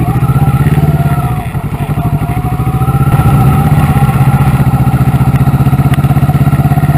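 Kawasaki Versys 650's parallel-twin engine running as the motorcycle rides along a rough dirt track. The engine note rises and then eases off about a second and a half in, then pulls steadily again from about three seconds on.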